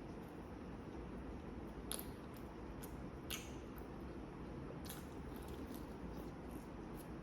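Soft eating sounds of a person chewing food, with a few short sharp mouth clicks or smacks, the clearest about two, three and five seconds in, over a steady low hum.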